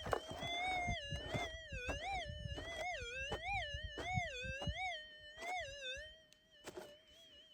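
Minelab SDC 2300 metal detector's audio: a steady humming threshold tone that for a few seconds warbles up and down in pitch, about once every half second, as the coil passes back and forth over a buried target. Gravel and ground scuffing with light clicks underneath.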